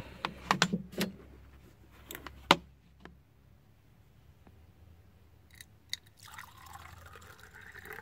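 Water poured from a bottle into a mug, starting about six seconds in, its pitch rising as the mug fills. A few sharp clicks and knocks from handling come before it, the loudest about two and a half seconds in.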